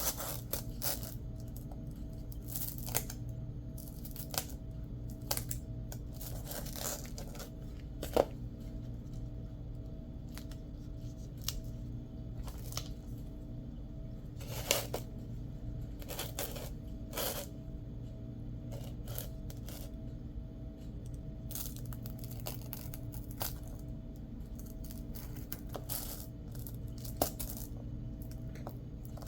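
Scattered light clicks and taps from handling small craft items on a work surface, irregular and a few seconds apart, over a steady low hum.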